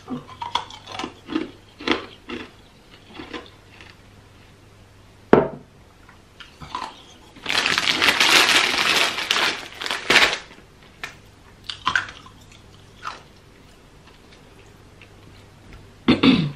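A plastic bag of plantain chips crinkling as it is handled, for about three seconds in the middle. Around it, scattered small clicks and clinks, with one sharp knock about five seconds in.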